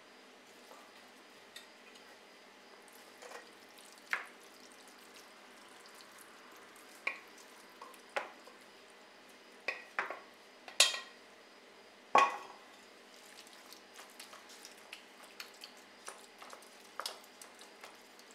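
Spoon scraping and knocking against a metal mixing bowl and a pan while ground-meat filling is scooped out and spread: scattered clicks and clinks, with two louder knocks a little past the middle.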